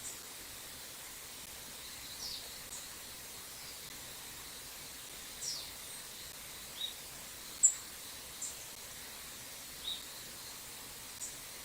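Short, sharp, high bird call notes, about nine of them scattered irregularly, several dropping quickly in pitch, with the loudest about two-thirds of the way in. Underneath is the steady rushing hiss of a small stream.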